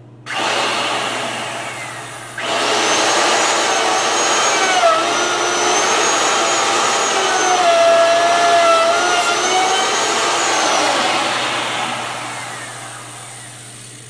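Handheld electric router running. It starts, fades, then starts again louder about two and a half seconds in. Its whine dips in pitch a couple of times under load as it cuts, and it winds down near the end.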